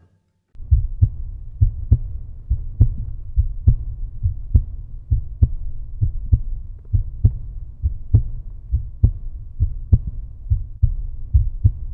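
Deep, regular thudding pulse like a heartbeat, about three thuds a second, with almost nothing higher in pitch.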